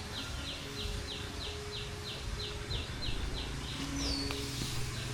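A bird's rapid, regular chirping, about three short chirps a second, stopping near the end, with one higher falling whistle about four seconds in. A low hum lies underneath.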